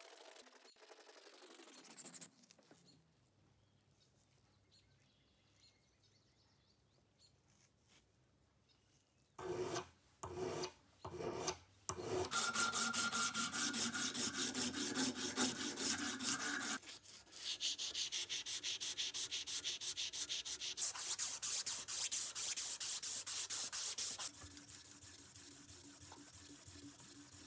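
A hand file rasping on the steel blade tip of an old ratchet screwdriver. After a quiet pause come a few single strokes, then a strip of abrasive cloth is pulled rapidly back and forth around the clamped steel shaft, polishing it, as a dense rhythmic rasping that drops lower near the end.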